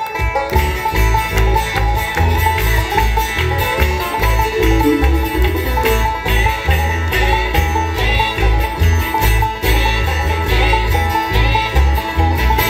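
Bluegrass band playing live through a PA system: banjo and acoustic guitar over a steady, pulsing bass beat. The tune stops near the end.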